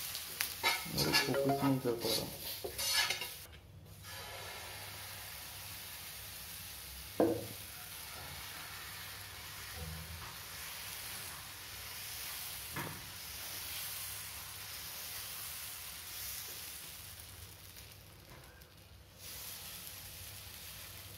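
Clatter of utensils at the pan, then dosa batter sizzling steadily on a hot nonstick tawa as a ladle spreads it in circles, with two sharp knocks of the ladle on the pan.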